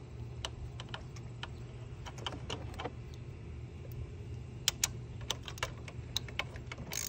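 Ratchet of a socket wrench clicking in short runs as a spark plug is turned back into the Chevy Cruze 1.4L engine's cylinder head, over a steady low hum.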